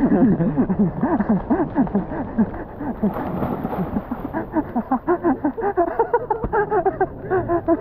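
Excited shouting and whooping from several people, with the splash of someone jumping into a swimming pool about three and a half seconds in.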